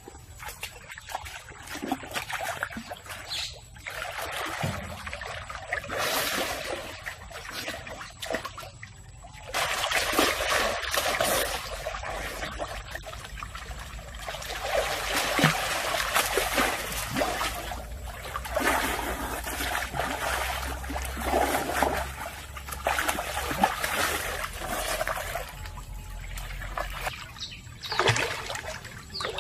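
Water trickling and splashing, louder from about nine seconds in.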